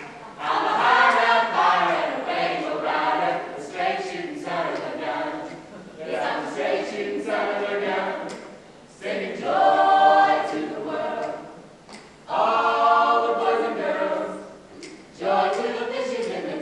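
Mixed-voice a cappella group singing together in harmony, in phrases of a few seconds broken by short pauses.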